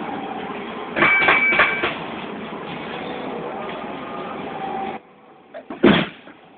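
Steady arcade din, with a loud burst of clatter and electronic tones about a second in. Near the end comes a single loud thump: a punch landing on the punching bag of an arcade boxing machine.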